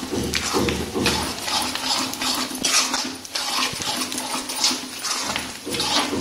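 Metal spatula scraping and stirring ghee-roasted flour with puffed gond (edible gum) around a steel kadhai, in quick repeated strokes.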